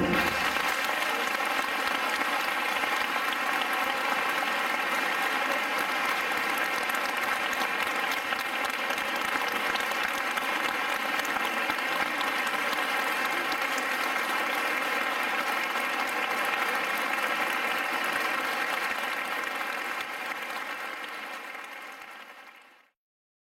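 Audience applauding steadily, then fading out over the last couple of seconds.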